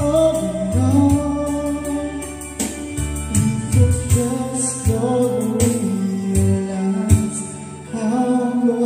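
Karaoke song playing from a Megapro Plus karaoke player: a slow love-song backing track with a voice singing the melody over it in long, held notes.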